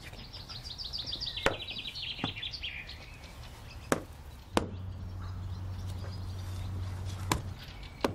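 About six sharp clicks, irregularly spaced. Over the first three seconds a songbird sings a fast trill that falls in pitch. A low steady hum comes in about halfway through and stops near the end.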